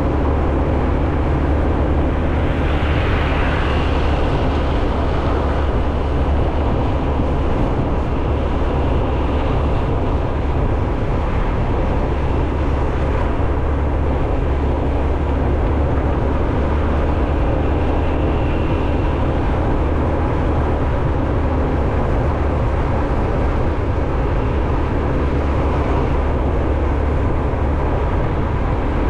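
Steady rumble of a moving vehicle, with wind noise on the microphone and no break or change in level.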